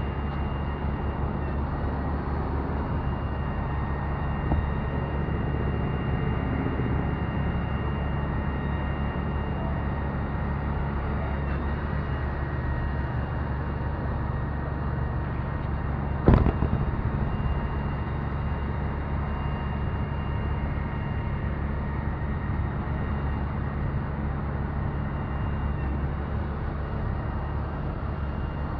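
Six-cylinder diesel engine of a 1995 International 4800 truck running steadily, with a faint steady whine above it. A single sharp knock about sixteen seconds in.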